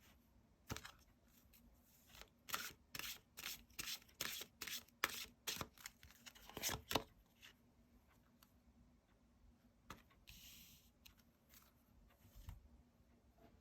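Tarot cards being handled: a quick run of crisp card snaps and slides, about two a second, then a softer rub of card on card.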